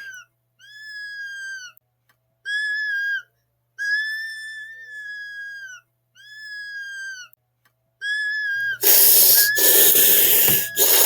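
A cartoon puppy whimpering: a series of high, whistle-like whines, each about a second long and dropping slightly at the end. About two-thirds of the way in, a much louder, noisy outburst breaks in over the whine.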